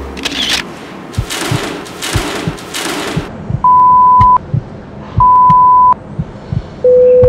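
Electronic beep tones: two high beeps of under a second each, then a longer, lower beep starting near the end. They come after a few seconds of noisy swells, over low regular thumps.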